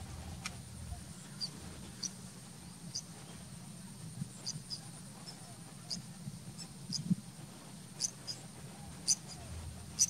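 Small birds giving short, high chirps at irregular intervals, about one a second and some in quick pairs, over a faint steady high whine.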